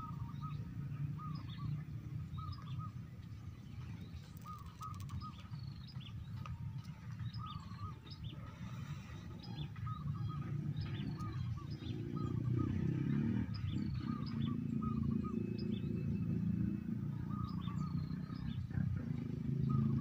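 Zebra doves (perkutut) cooing in repeated short phrases, with small birds chirping higher up, over a steady low rumble that grows louder about halfway through.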